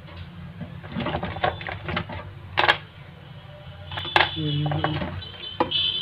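Plastic clicks and rattles of a keypad mobile phone's housing being handled and pressed together: a run of quick ticks about a second in, then a few sharper single clicks.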